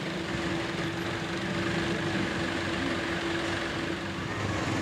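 Street traffic: car engines running in slow, congested traffic, with a steady hum under it.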